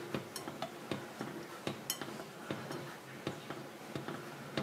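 Spoon clicking and scraping against a metal saucepan while stirring a thick tapioca and coconut-milk mixture: irregular light clicks, two or three a second.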